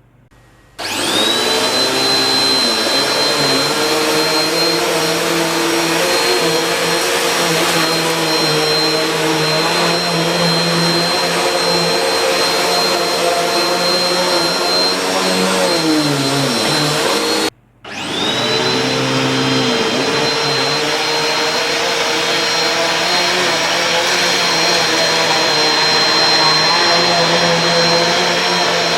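Canister vacuum cleaner with a powered brush-roll head starting up, its motor whine rising and settling into a steady high whine over the rush of suction while it vacuums a shag rug. The sound cuts off abruptly about 17 seconds in, and the motor spins up again at once and runs on steadily.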